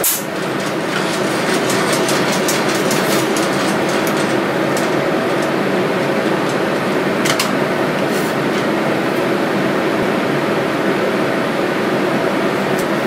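Steady rushing air and hum from the blower fan of a laminar flow hood running over the work bench, with a few light clicks as petri dishes and the scalpel are handled.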